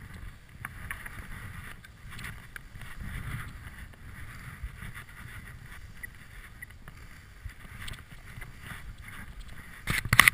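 Skis hissing steadily through deep powder snow, with wind and clothing rustle on the body-mounted camera's microphone. Near the end a short, loud scuffing and knocking as jacket fabric rubs against the camera.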